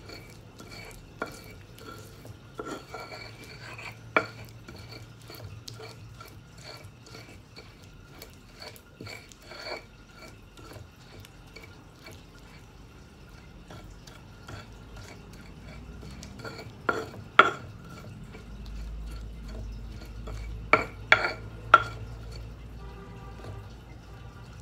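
Stone pestle stirring and grinding a wet rujak paste of palm sugar, chili and tamarind in a stone mortar (cobek): steady small scrapes and clicks of stone on stone, with a few louder knocks, the loudest about 17 and 21 seconds in.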